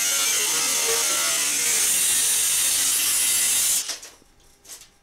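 Angle grinder with a thin cutoff wheel slicing through 16-gauge sheet steel: a loud, steady, high-pitched grinding that stops about four seconds in and briefly winds down.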